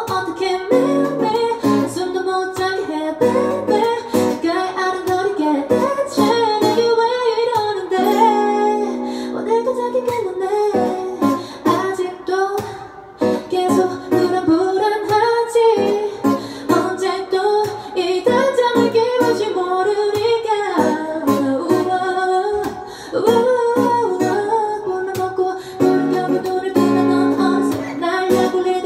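A woman singing a pop song, accompanied by an acoustic guitar played with fingers or a pick. Her voice carries the tune and holds one long note about eight seconds in.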